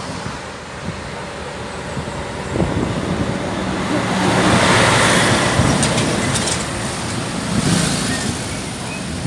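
A large truck driving past on the highway. Its noise swells to a peak about halfway through, then fades.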